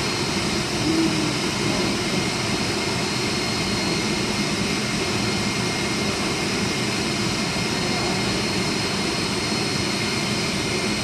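Industrial machinery running with a steady, unbroken drone and a few constant high-pitched whines, from the plant around a roller-chain and sprocket drive.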